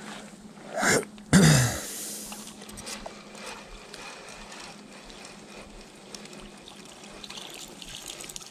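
Water splashing twice about a second in, the second splash the loudest, as a hooked crucian carp is brought out of the water, then water trickling and dripping.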